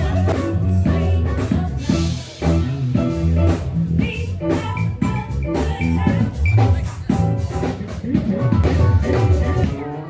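Music with drums and guitar and a steady beat.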